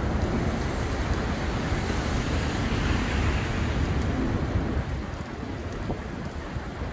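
Heavy thunderstorm rain falling steadily, with a deep rolling rumble of thunder that eases off about five seconds in.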